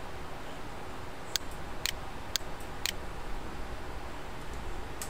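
Four sharp computer mouse clicks, about half a second apart, over a steady hiss and low hum of room and microphone noise.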